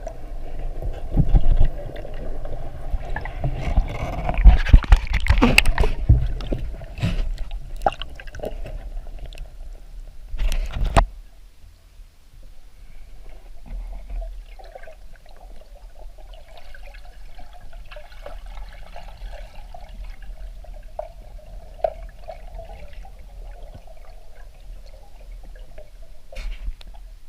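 Water sloshing and gurgling around a spearfishing diver and the camera, with loud irregular knocks and rushes. About eleven seconds in it cuts off suddenly to a quieter, steadier water sound.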